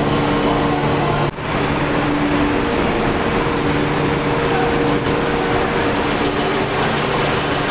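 Industrial plant machinery of a 15-tonne induction furnace installation running steadily, a dense noise with a constant low hum over it. There is a brief dropout a little over a second in.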